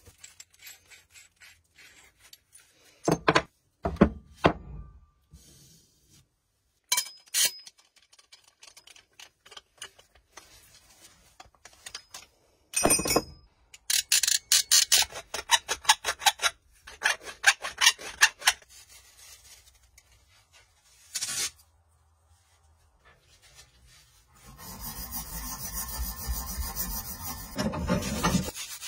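Copper pipe and brass fittings being prepared for soldering: scattered clinks and knocks of metal fittings and tools, a run of quick scraping strokes about halfway through, then several seconds of steady rubbing near the end as a copper pipe clamped in a pipe vise is cleaned.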